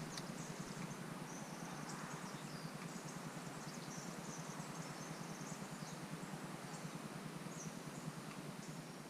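Faint outdoor ambience: a steady hiss with scattered short, high bird chirps in the distance and a couple of faint clicks.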